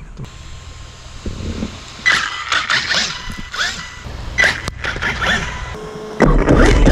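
Axial RYFT RC crawler on Pro-Line Black Mamba tyres driving on sand: its electric drive motor whines in repeated rising and falling bursts from about two seconds in, with gritty sand spray. About six seconds in a loud low rumble takes over as the wheels churn sand close by.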